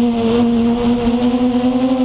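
Brushless motors and 10-inch propellers of a quadcopter humming in flight: a steady droning tone with overtones that sags and rises a little as the throttle changes, with a hiss of air over it.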